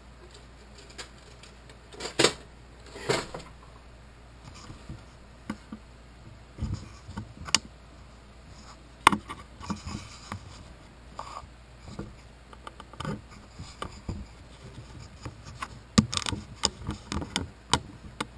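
Scattered clinks, clicks and knocks of small metal tools being handled: drill bits rattling in a workbench drawer as it is searched for the right size.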